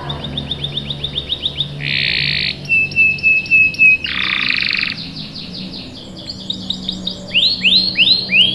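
Domestic canary singing a varied song: fast trills of repeated notes, two short harsh buzzy phrases, a steady high whistled note, and a run of rising upswept notes near the end.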